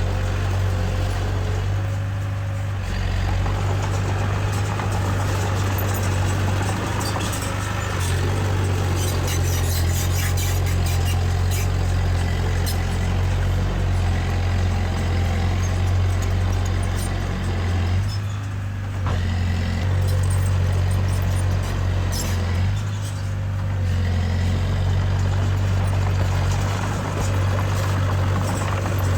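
Diesel engine of heavy earthmoving machinery running steadily, a deep constant drone with light high-pitched rattling over it, easing briefly a few times.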